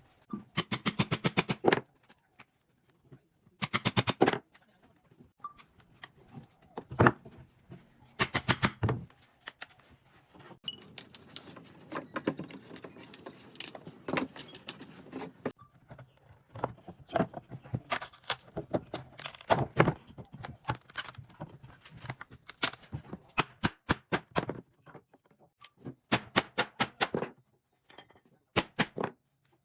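Irregular knocks and taps, broken by short rattling runs of rapid clicks, from hand work with tools on wood.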